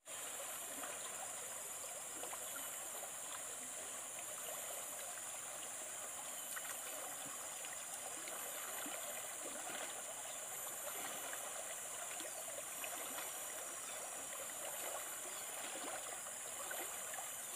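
Water in a pot bubbling steadily as it comes to the boil.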